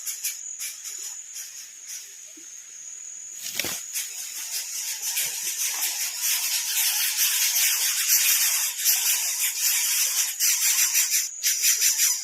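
Baby bird's begging calls: rapid, high-pitched rasping that gets louder from about four seconds in. A single knock comes just before.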